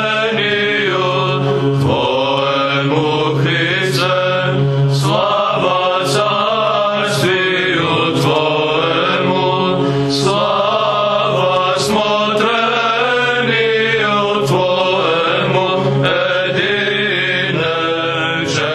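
Orthodox Byzantine chant: voices singing a winding melody over a steady, held low drone note (the ison).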